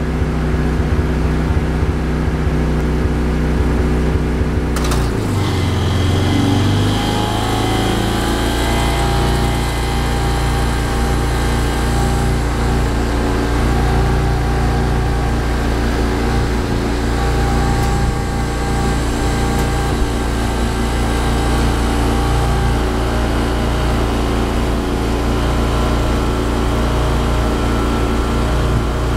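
Briggs & Stratton 8 kW tri-fuel generator's engine running on gasoline. About five seconds in there is a click as a 4-ton central air-conditioner starts, the engine's pitch sags for a couple of seconds under the compressor's starting load and recovers. It then runs steadily under heavy load, with the condenser unit's hum added.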